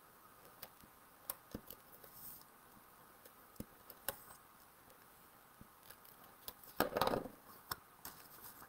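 Cardstock being pressed down and handled on a tabletop: scattered soft clicks and taps, with a louder paper rustle near the end.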